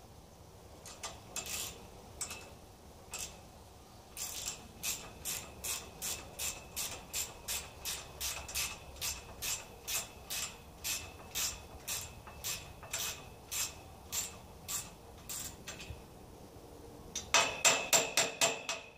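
Ratchet wrench clicking as the bolts of a steel greenhouse corner brace are tightened. A few scattered clicks come first, then a steady run of about two clicks a second. Near the end comes a quicker, louder burst of clicks.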